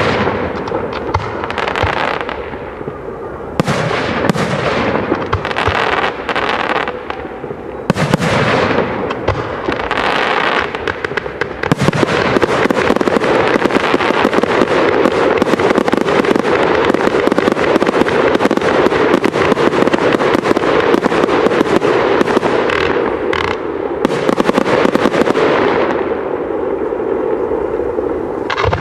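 Fireworks display: aerial shells bursting in a string of sharp bangs. About twelve seconds in they thicken into a dense, almost continuous barrage, which thins out again near the end.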